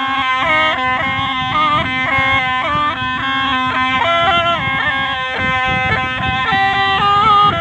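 Snake charmer's gourd been (pungi) playing a melody of held notes that step up and down, over a steady low drone that drops out about halfway.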